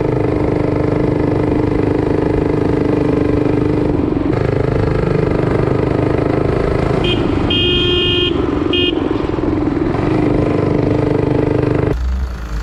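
Minibike's Predator 212 single-cylinder engine running steadily under way. About seven seconds in, a low-tone electric horn sounds three times: short, long, short.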